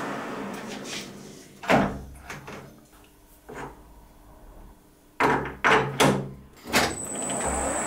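Colchester lathe running down to a stop, then a series of sharp metal clunks as a tool holder is taken off and fitted to the toolpost. Near the end the lathe starts running again with a thin high whine.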